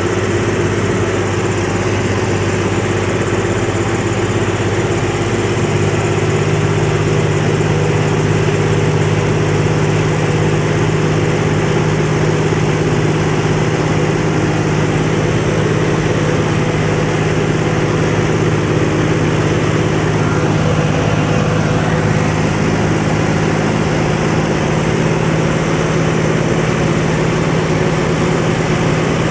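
Heavy diesel engine of a farm vehicle running steadily. Its pitch steps up about five seconds in and then holds.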